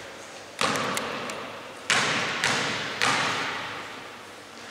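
A basketball bouncing on the wooden court floor of an echoing sports hall: four sharp thuds at uneven intervals, each ringing on in the hall's reverberation.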